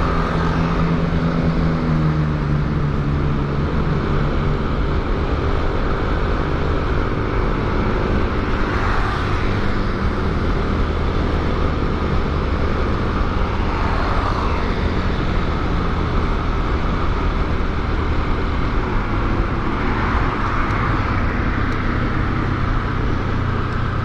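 Motorcycle engine running under steady riding, with a rushing wind and road noise over it; the engine note falls in the first few seconds as the bike slows.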